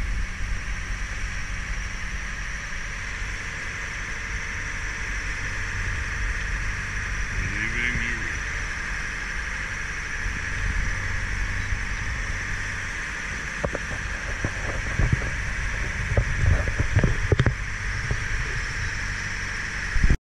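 A motorboat's engine running steadily underway, with the wash of the wake. In the second half there are irregular low thumps.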